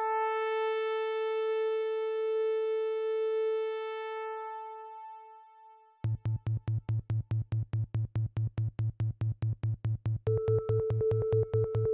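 Electronic synthesizer music: a held note with a rising sweep fades away, then a fast pulsing beat with a deep bass starts suddenly about six seconds in, and a higher held note joins near the end.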